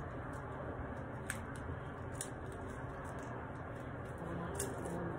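Small paper wrapper being handled and crinkled, with three sharp little clicks, over a steady low background hum.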